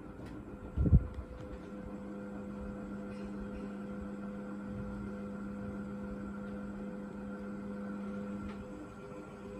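National F-560A1 56-inch industrial ceiling fan running, its motor giving a steady, slight hum. A low thump about a second in is the loudest moment.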